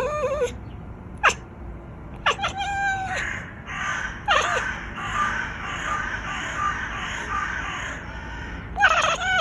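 A pet cat making a string of short, high, warbling calls with sliding pitch, with a longer, rougher stretch of sound in the middle: the odd vocalisations the owner finds cute.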